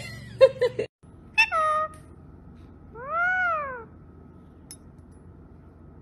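Yellow Indian ringneck parakeet mimicking a cat: a short call, then a longer meow that rises and falls in pitch. Before them, a brief burst of voice sounds cuts off just under a second in.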